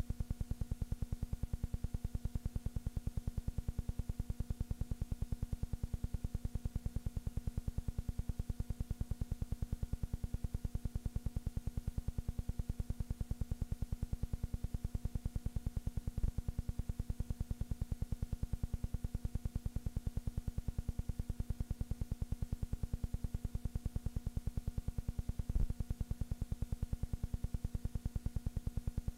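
A steady low hum with a rapid, even pulsing, broken by two short clicks, one about halfway through and one near the end.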